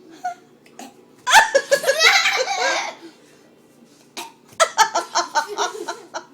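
Laughter in two bouts of quick pulsing ha-ha sounds, one about a second in and another in the second half.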